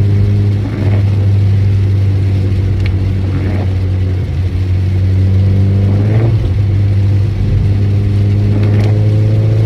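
Cabin sound of a 2013 Honda Civic Si under way: the 2.4-litre four-cylinder engine and drivetrain drone steadily, the pitch rising slowly from about six seconds in as the car accelerates. Faint knocks come every few seconds during an intermittent clanking noise that the owner suspects comes from the transmission or clutch.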